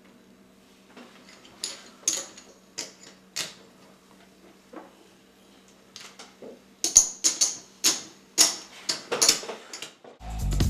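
Poker chips clicking and clacking against one another as they are handled: a few scattered clicks, then a quick run of clacks about seven seconds in. Music comes in at the very end.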